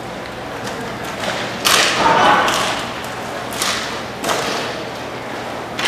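Sharp knocks of hockey sticks and puck during roller hockey play, four in all, each echoing briefly. The loudest comes about a second and a half in.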